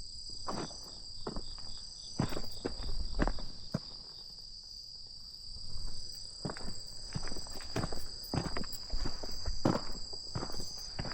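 Footsteps walking at an uneven pace, pausing for a couple of seconds about four seconds in, over a steady, high-pitched chorus of crickets and other night insects.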